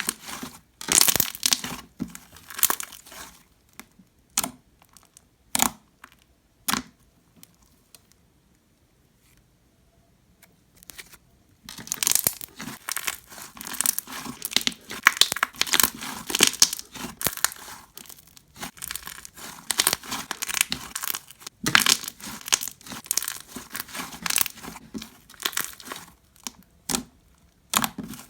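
Hands squishing, stretching and poking glitter slime made from Elmer's glue and borax activator, giving a sticky crackling sound. There are a few separate squishes in the first seven seconds, then almost unbroken squishing from about twelve seconds in.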